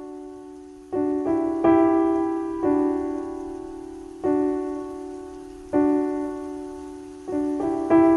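Slow, gentle piano music: single notes and soft chords are struck and left to ring out, with a few quicker notes close together around the second second and again near the end.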